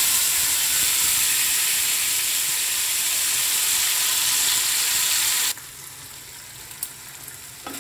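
Hot oil sizzling loudly in a non-stick frying pan as a wet paste of chilli, ginger and tomato is poured over frying potatoes. The sizzle drops abruptly to a much quieter level about five and a half seconds in.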